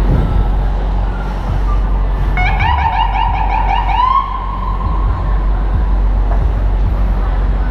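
Emergency vehicle siren giving a short burst of rapid warbling yelps about two and a half seconds in, ending in a rising tone that is held briefly, over a steady rumble of city traffic and wind.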